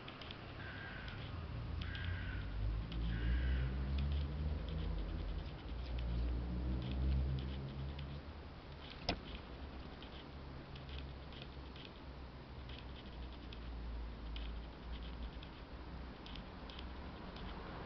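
A cat licking its fur: faint, quick ticks and rasps of the tongue, over a low rumble that swells in the first half. Three short high chirps come in the first few seconds, and a single sharp click about nine seconds in.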